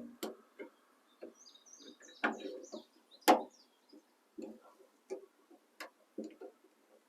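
Scattered clicks and knocks of the metal latch rods and their plastic retaining clips being worked by hand inside a 2006 Chevy Silverado tailgate, as a rod is pushed into its clip. The two loudest knocks come a little over two and three seconds in.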